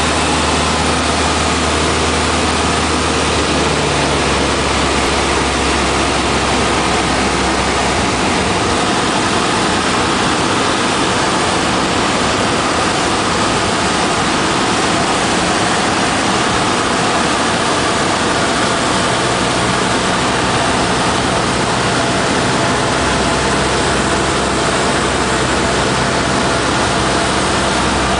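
Single-engine light aircraft's engine and propeller heard from inside the cabin, a loud steady drone and rush. The deep hum eases about eight seconds in and comes back after about 23 seconds.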